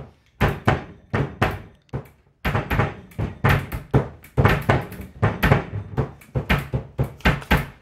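A protein shake being shaken hard in a shaker bottle: quick, rhythmic knocks, about four a second, with a short break about two seconds in.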